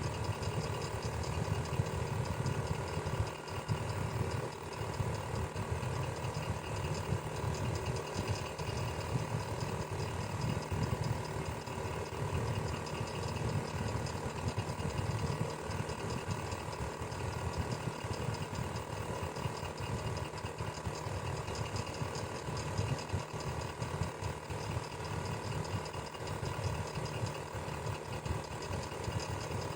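Electric fan running steadily: a continuous low hum and rush of air, with a faint steady whine.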